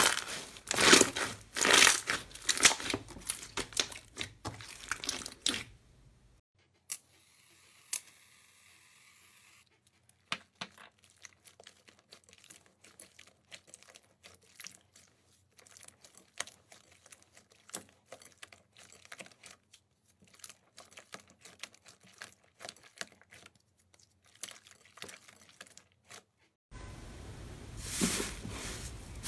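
Hands squeezing and pressing slime, which crackles and pops with many small clicks. The clicking is dense and loud for the first six seconds, then faint and sparse, and grows loud again near the end.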